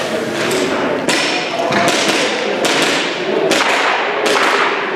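Airsoft pistol shots, about six in a row at roughly one a second, each sharp crack trailed by a long echo through a large hall.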